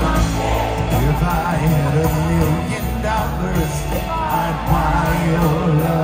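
Live rock band playing loudly through an arena PA, heard from within the audience: a steady moving bass line under guitars and keyboards, with some singing.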